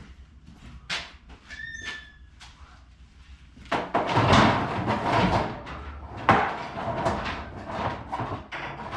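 Handling noise: a few light clicks and a short squeak, then about four seconds in a loud stretch of rustling and clattering with several sharp knocks.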